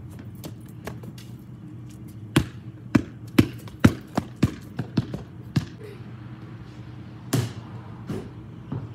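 Basketball bouncing on a concrete driveway: a run of dribbles about two a second starting a couple of seconds in and quickening, then a louder impact about seven seconds in and a couple of lighter bounces near the end.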